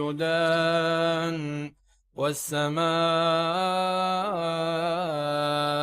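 A man chanting Quran recitation in long, melodic held notes, bending the pitch in ornaments, with a short breath pause about two seconds in.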